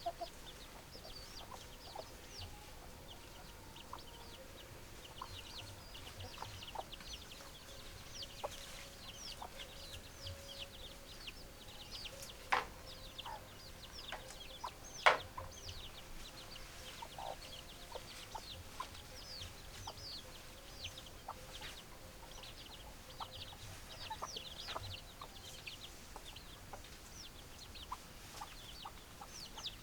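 Chickens clucking, with many short high calls throughout. Two sharp knocks stand out, about twelve and fifteen seconds in.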